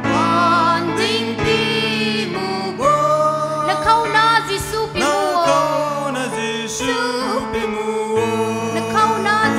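A women's choir singing in unison from song sheets, over steady sustained instrumental accompaniment, amplified through a PA system.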